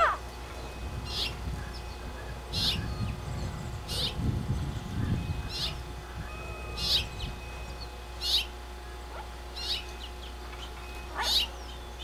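Blue-fronted Amazon parrot giving short, sharp high chirps, one about every second and a half, with a low rumble in the first half.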